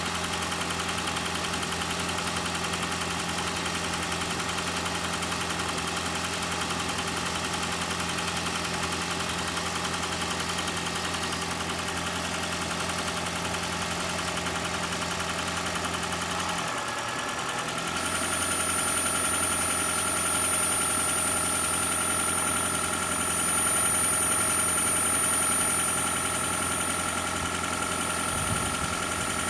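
Toyota Prius 2ZR-FXE 1.8-litre four-cylinder engine running steadily while checked for a suspected knock. A little over halfway through its note changes and gets slightly louder, and a high steady whine comes in.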